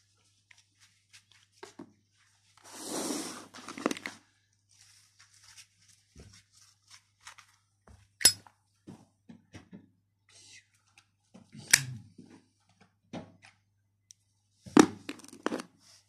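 Handling of Zippo windproof lighters and their packaging: a rustle of packaging about three seconds in, then scattered sharp metallic clicks and knocks as the metal-cased lighters are picked up, turned over and set down.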